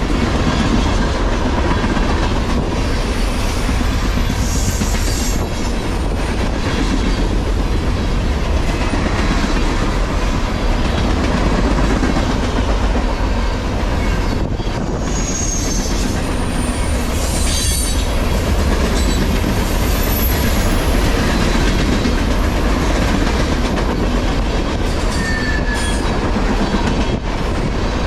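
Freight cars rolling past at speed: a steady, loud rumble of steel wheels on the rails, with a few brief high wheel squeals.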